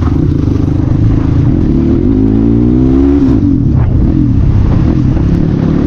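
CX250R motorcycle engine running through an exhaust with its dB killer removed. The revs rise from about two seconds in and drop back a second or so later.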